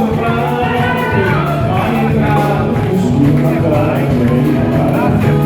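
Live band playing a song, with a singer's voice over a steady beat and sustained bass notes.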